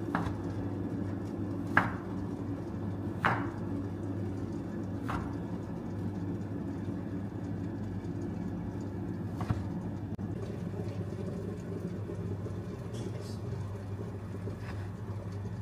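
Kitchen knife cutting a block of tempeh on a wooden cutting board: a handful of sharp, irregular knocks as the blade meets the board, the two loudest about two and three seconds in. Under them runs a steady low mechanical hum.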